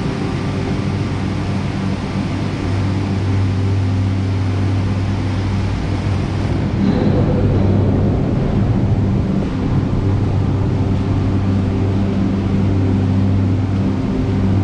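Steady low hum of the Eiger Express tricable gondola station's machinery, with a louder, rougher rush about seven seconds in as a detached cabin rolls through the station.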